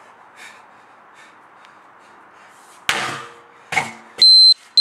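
A 34 kg sledgehammer strikes a tyre once, about three seconds in: a sharp hit with a short ring, followed by a softer second sound. Near the end a loud, high, steady electronic beep sounds twice.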